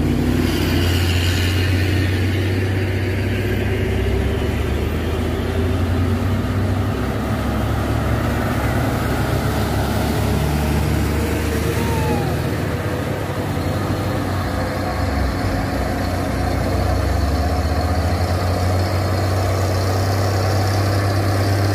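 Heavy diesel truck engines running at low revs, a steady low drone.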